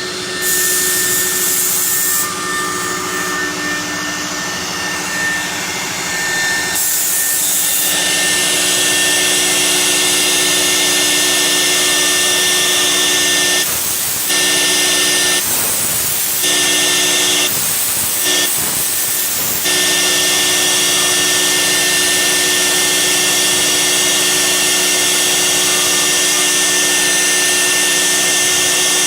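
CNC router spindle running with a steady whine while its cutter mills thick acrylic sheet, over a constant hiss. The hiss shifts abruptly several times about halfway through.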